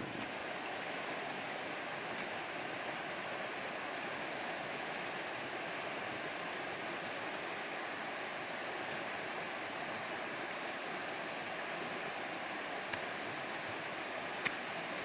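Steady rushing of flowing water, like a nearby stream, with a few short sharp ticks near the end.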